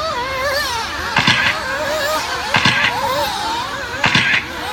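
Several nitro RC buggy engines running at high pitch, wavering up and down as the drivers work the throttle. Three short scraping bursts with knocks come about a second and a half apart, about a second in, near the middle and near the end.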